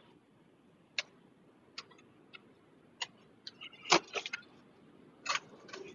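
Irregular short, sharp clicks and taps over a quiet line, a dozen or so, with a quick cluster about four seconds in that holds the loudest click.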